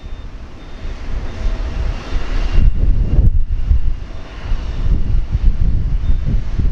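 Jet airliner noise from a Boeing 787-9 on pushback: a steady rushing hum with faint high whines, swelling and easing a little, under heavy wind rumble on the microphone.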